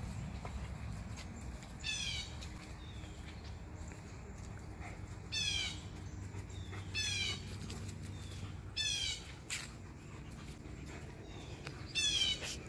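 A bird calling five times, each call a short burst of falling notes lasting about half a second, over a steady low background rumble.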